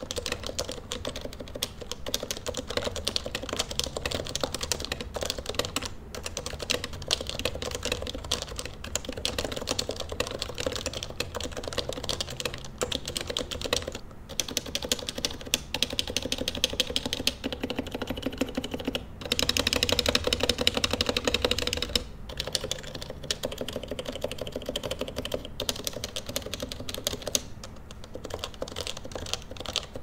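Continuous fast typing on an HHKB Professional Classic with stock, unsilenced 45 g Topre switches: a quick stream of keystrokes with a rattly, loud keycap sound. The typing gets louder for about three seconds around two-thirds of the way through.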